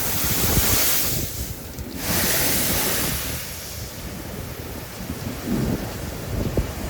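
Storm waves crashing, with two loud rushing surges of spray, one at the start and another about two seconds in, over strong wind buffeting the microphone.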